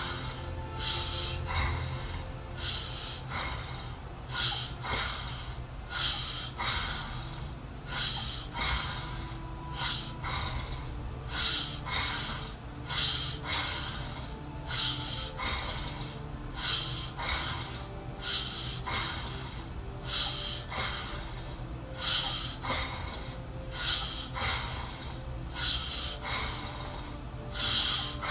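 A man snoring in his sleep: rough, snorting breaths in a steady rhythm, about one every second or so.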